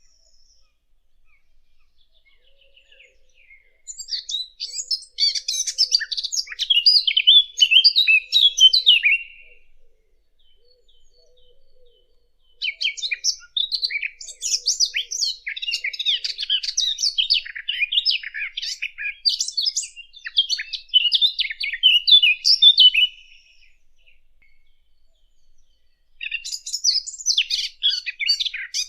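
Sylvia warbler, the 'fig bird' (dakhal), singing long, fast, scratchy warbling phrases, each several seconds long, three times with short pauses between.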